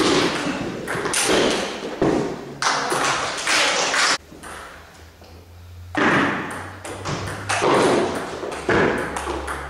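Table tennis rally: the celluloid ball clicking off the bats and the table in quick succession, echoing in a hall. About four seconds in there is a quiet gap of nearly two seconds, then the next rally starts.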